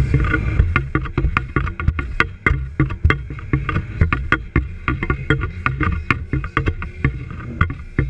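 Aluminum boat's hull slapping over small waves at speed, a quick irregular run of sharp knocks, over the low rumble of the outboard motor.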